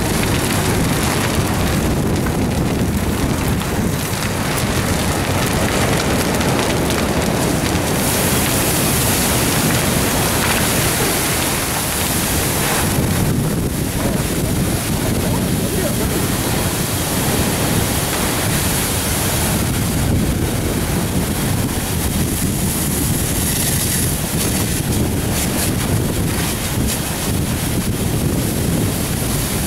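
Pressurized kerosene fire burning with a steady, loud rushing noise, mixed with wind on the microphone. From about 8 s in, the hiss of a fire hose water stream joins it.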